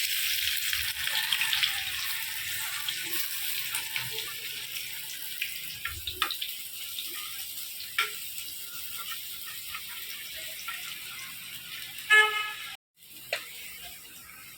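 Chopped onion and crushed garlic sizzling in hot oil in a kadhai over a wood fire, the hiss loudest at first and slowly dying down, with a few scattered crackles. About twelve seconds in, a short horn honk is the loudest sound, and the audio drops out for a moment just after.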